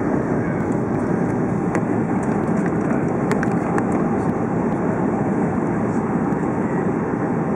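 Steady, even rush of distant jet airliner engines, with a few faint clicks.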